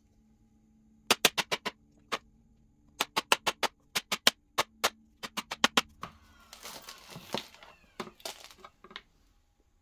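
Sharp plastic taps in quick runs of four to six, from a green handheld vacuum's plastic head and dust bin being knocked to shake loose packed dust and lint. Near the end the taps give way to about three seconds of rustling and scraping as the debris falls and the parts are handled.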